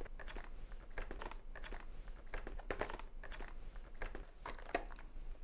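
Plastic medication packaging handled: light crinkling with scattered small clicks of the clear blister tray and its contents.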